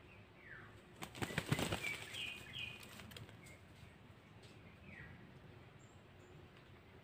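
A junglefowl's wings flapping in a brief, quick flurry about a second in, against a quiet forest background with a few short, high, falling bird chirps.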